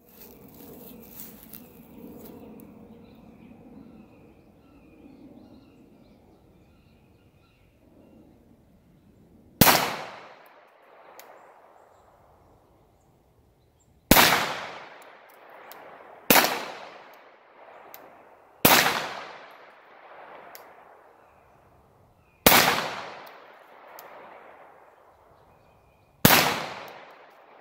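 Six shots from a Walther PPQ Q5 Match pistol fired slowly, a few seconds apart, the first about ten seconds in. Each sharp crack is followed by a fading echo.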